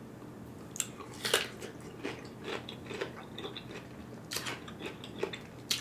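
A person biting and chewing food close to the microphone: irregular wet mouth clicks and small crunches, starting about a second in.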